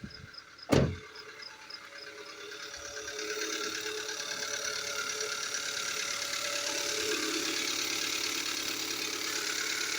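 2015 Kia Soul engine idling with a fast, even ticking, which grows louder from about two and a half seconds in. A sharp knock comes just under a second in. The ticking was later traced to the pistons slapping and scoring the cylinder walls.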